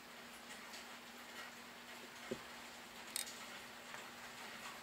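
Faint, irregular ticks and two small sharp clicks over a steady low hum, as a metal lathe carriage is moved slowly by hand against a digital caliper and dial indicator.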